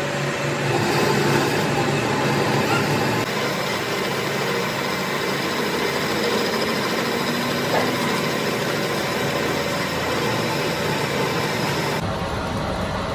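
A workshop machine running steadily, with an even mechanical noise and a faint steady hum. The sound changes abruptly about twelve seconds in.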